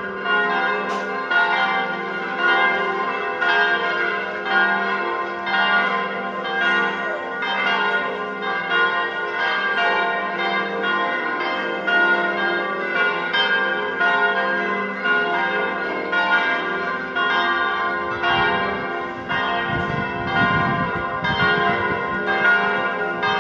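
Several church bells ringing together in a continuous Sunday peal, their strokes overlapping in a steady rhythm. A brief low rumble comes in about three-quarters of the way through.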